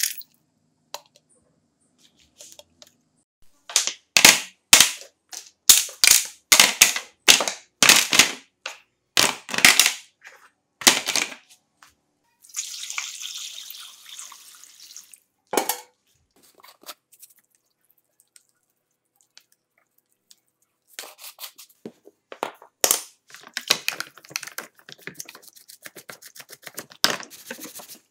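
A run of about a dozen short, sharp strokes, then water poured from a jug over plastic chainsaw housing parts in a plastic tray, and near the end a stiff brush scrubbing the wet parts in quicker and quicker strokes.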